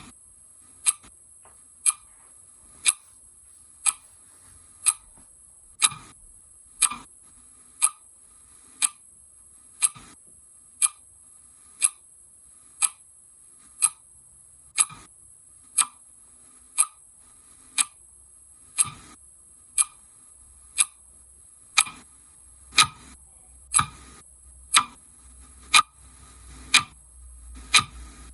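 Clock ticking steadily, one sharp tick about every second, over a faint steady high hiss.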